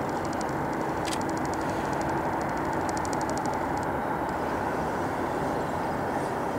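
Airbus A350-900's Rolls-Royce Trent XWB jet engines running at taxi power, heard from afar as a steady rush with a faint whine.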